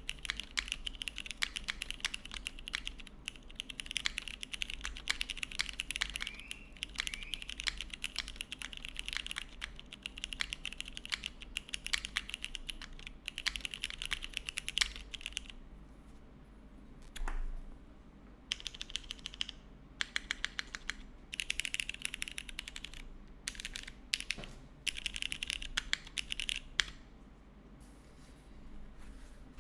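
Typing on a gasket-mounted mechanical keyboard (SINGAKBD Kohaku R2) with broken-in, lubed and spring-swapped Cherry MX Brown tactile switches on a polypropylene plate and GMK keycaps. There is fast continuous typing for about the first half, then shorter bursts of keystrokes separated by brief pauses.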